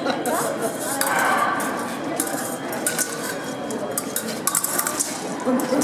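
Steel fencing blades clicking and clinking against each other in quick, irregular clusters during a bout, over the murmur of a sports hall.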